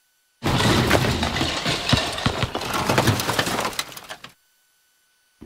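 A run of crashing and banging lasting about four seconds: many sharp impacts and glass-like breaking, tailing off and stopping abruptly.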